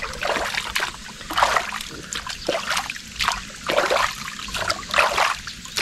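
Water in an inflatable boat splashing as a hand scoops it up and slops it over a small dog, in short splashes about two a second.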